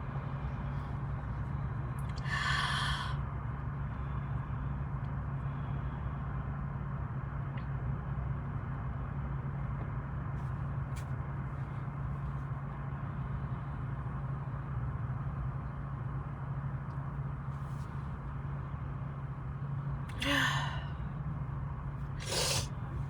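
A person's short, sharp breath sounds: one about two seconds in and two near the end, over a steady low hum.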